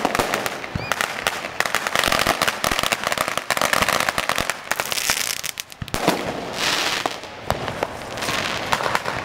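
Ground fireworks going off: dense rapid crackling and popping over a hiss of spraying sparks. The hiss swells loudly about five seconds in and again near seven seconds, after a brief lull.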